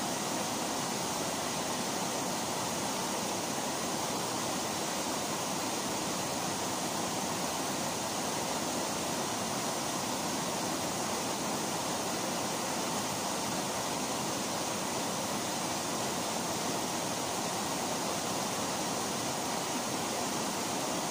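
Small waterfall pouring down a rock face into a pool: a steady rush of water.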